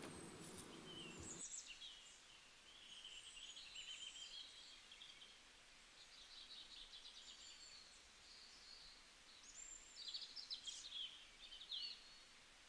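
Faint birdsong: scattered high chirps and short trills from small birds, coming in several short spells, with a busier spell a little before the end.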